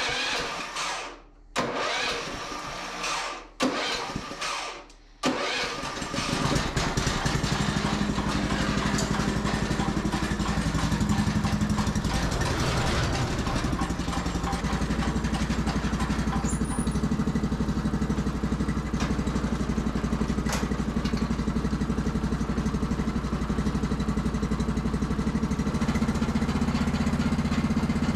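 Sears Suburban 12 garden tractor engine being cranked over in a few short starter bursts. It catches about five seconds in, then runs steadily.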